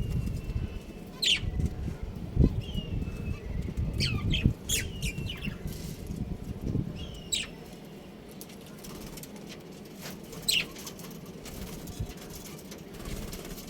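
Budgerigars chirping: short, sharp, falling chirps scattered every second or few, over a low rustling that dies away about halfway through.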